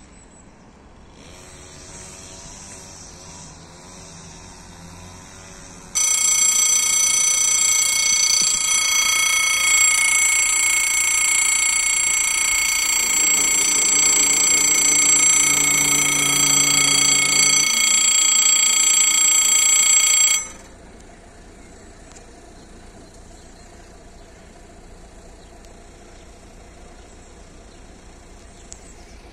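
Level-crossing electric bell ringing continuously as the crossing closes, starting about six seconds in and cutting off suddenly some fourteen seconds later, signalling an approaching train. Partway through, the barrier's motor hums low for a few seconds while the boom lowers.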